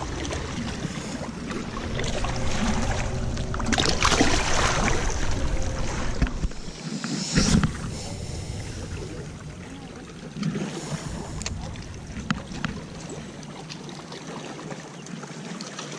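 Wind buffeting the microphone over small waves lapping against a rocky shoreline, with a few brief louder knocks and splashes, the strongest about seven and a half seconds in.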